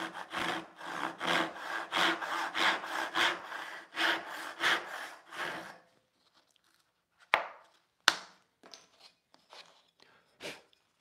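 Rob Cosman joinery crosscut backsaw, a 15 TPI hand saw, sawing across a small piece of poplar in steady strokes, about two a second, for some six seconds. After the cut stops come a few sharp wooden knocks.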